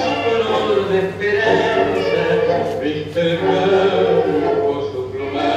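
Recorded tango music with a male vocalist singing a melodic line over the orchestra.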